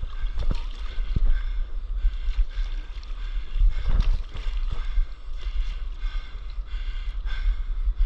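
Water washing and splashing around a stand-up paddleboard as it glides over the sea, with irregular short splashes over a steady low rumble.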